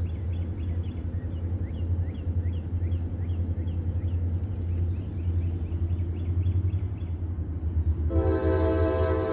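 A small bird chirping repeatedly over a steady low rumble. About eight seconds in, a diesel locomotive's air horn starts sounding, a loud held note that carries past the end.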